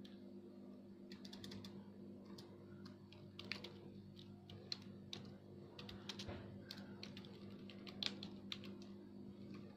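Typing on a computer keyboard: faint, irregular key clicks, some in quick runs, over a steady low hum.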